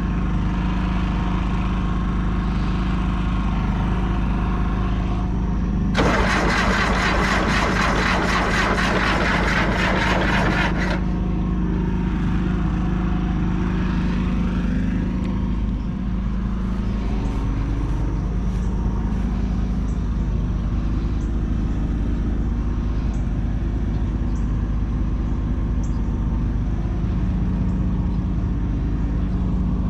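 John Deere 450C bulldozer's diesel engine running steadily. About six seconds in, a much louder rattling clatter joins it for about five seconds, then the steady engine running carries on.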